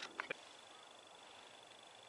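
Ferro rod scraped hard with a striker over a tinder bundle to throw sparks: two quick bright scrapes right at the start, then only faint hiss.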